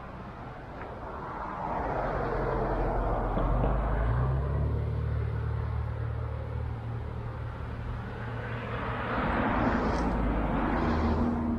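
Cars driving past, one swelling up and fading a couple of seconds in and another passing near the end with tyre hiss.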